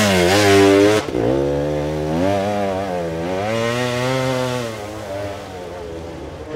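Enduro dirt bike engine revving hard in repeated rises and falls while the bike climbs a steep, loose slope with its rear wheel spinning. The sound changes abruptly about a second in, then rises in a longer pull and eases off near the end.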